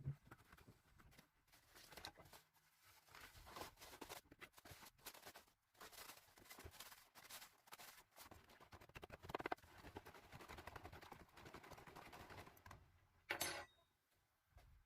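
Faint, irregular scraping and clicking of hand work on a tool, with a louder scrape near the end.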